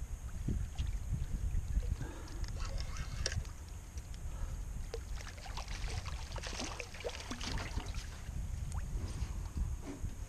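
A hooked bonnethead shark splashing at the surface of a shallow grass flat, in short irregular splashes, most of them between about two and eight seconds in. A steady low rumble of wind on the microphone runs underneath.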